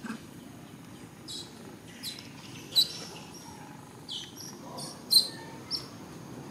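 A series of short, high-pitched chirping calls, some sweeping up or down in pitch, about eight in all. The two sharpest come nearly three and five seconds in, over a steady low outdoor hum.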